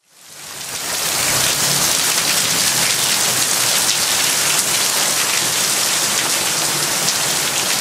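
Heavy monsoon downpour: dense, steady rain pouring onto surfaces, fading in over the first second and then holding at a constant loud level.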